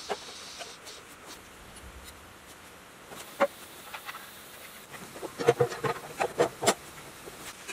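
Light knocks and clanks of a sheet-metal tank being handled and seated onto a diesel engine's top. There is one sharp tap about three and a half seconds in, then a quick cluster of several taps and knocks in the second half.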